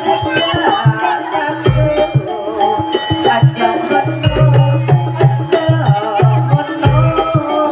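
Live jaranan gamelan accompaniment: a drum-led ensemble playing a busy rhythm under a wavering melody line, with a deep stroke landing about every two and a half seconds.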